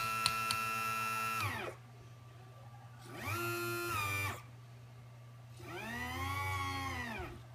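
Power drill running three times in short spells: each time the motor whine rises to speed, holds and winds down. There are a few sharp clicks near the start. This is most likely the drill driving the set screws of the coupler.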